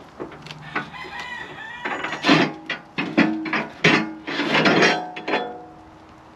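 Steel tooth bar knocking and scraping against the steel cutting edge of a Kubota loader bucket as it is worked off by hand. There are several clanks with a short metallic ring and a longer scrape near the end.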